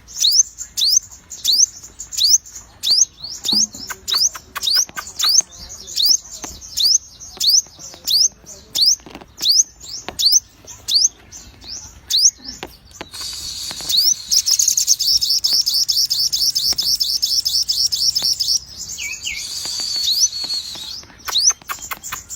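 A sogon songbird singing steadily: a string of short, high, upward-sweeping whistles about one a second, then past the middle a rapid run of rising notes lasting some four seconds, then a few more whistles near the end.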